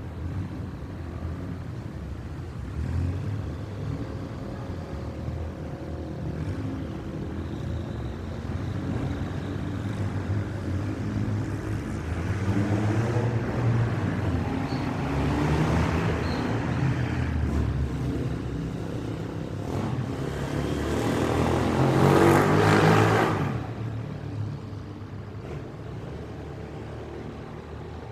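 Road traffic passing: a steady low engine rumble that swells as vehicles go by, loudest as one passes close about twenty-two seconds in, then fading.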